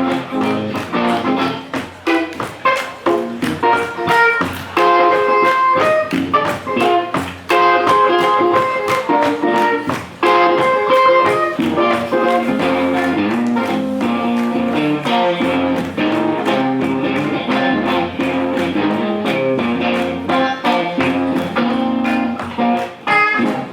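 Live blues guitar playing an instrumental passage: picked and strummed notes with sharp percussive attacks keeping a steady rhythm.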